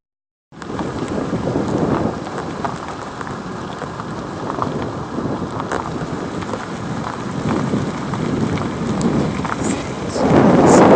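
Car driving slowly on an unpaved dike road: a dense rumble of tyre and road noise with scattered crackles, buffeted by wind on the microphone and swelling louder near the end.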